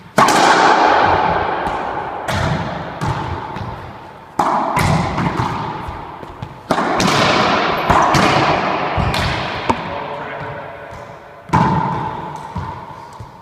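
Racquetball rally: the hard rubber ball cracking off racquet strings and the court walls, each hit ringing out in the court's long echo. About half a dozen loud hits, a second or two apart.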